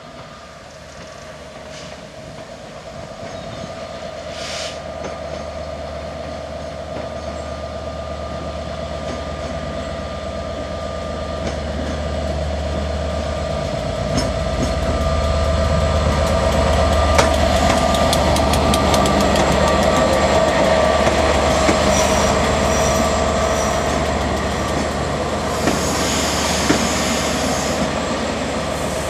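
Class 67 diesel locomotive hauling the Caledonian Sleeper, approaching and running in past the listener. The sound swells gradually to a heavy rumble from the locomotive's V12 two-stroke engine, under a steady high squeal from the wheels. Once the coaches are alongside, the wheels clatter rhythmically over the rail joints.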